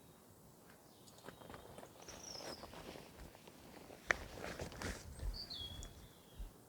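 Rustling and crunching of a person moving about on the woodland floor and handling gear, like footsteps, with one sharp click about four seconds in. A small bird gives two short falling chirps over it.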